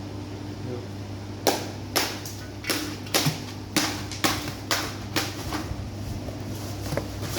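Es puter ice cream machine running with a steady low motor hum, while a series of sharp knocks about two a second sounds for a few seconds and then fades.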